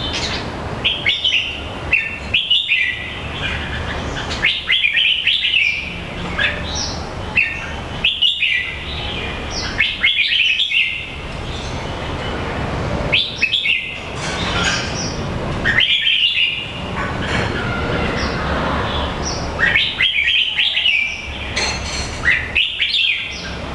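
A bird the uploader calls a jambul, chirping in short bursts every two to three seconds over a steady low rumble.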